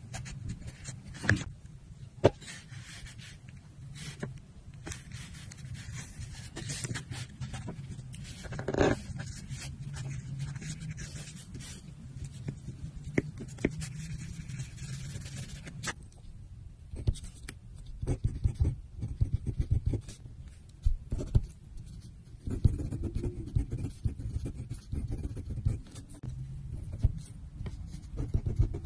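Metal cosmetic spatula scraping and smoothing brow-pencil pigment across paper in short, repeated strokes. Later comes a pen writing on the paper.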